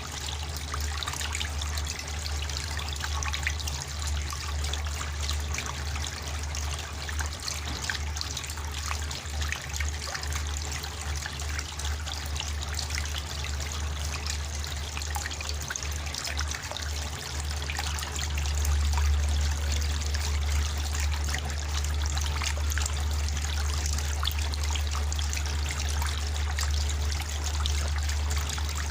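Water trickling and splashing down a homemade cement waterfall fountain, with a steady low hum underneath that grows a little louder about two-thirds of the way through.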